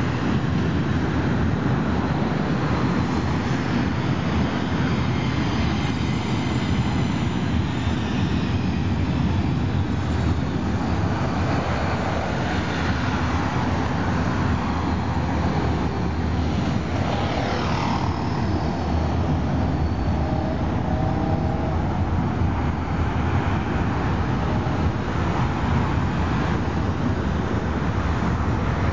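Electric passenger train rolling across a railway overpass, a steady rumble mixed with street traffic running underneath.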